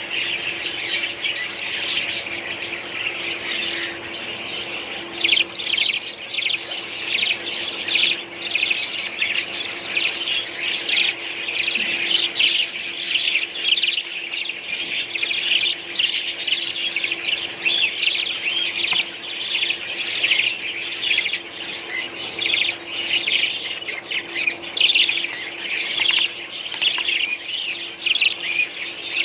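A colony of budgerigars chattering and squawking nonstop, many birds calling over one another, with a faint steady hum underneath.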